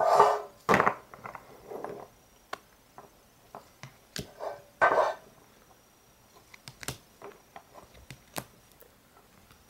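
Rigid plastic card top loaders clicking and rustling as they are handled and swapped from one to the next, with scattered light clicks and a few louder scrapes about a second in and near five seconds.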